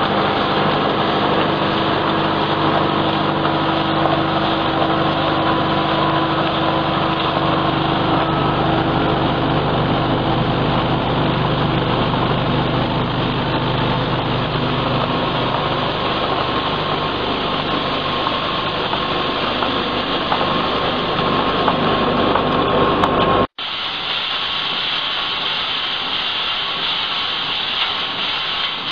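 Granule weighing and form-fill-seal packaging machine running: a steady mechanical hum with constant droning tones. About 23 seconds in the sound breaks off for an instant and returns thinner and hissier, with less low hum.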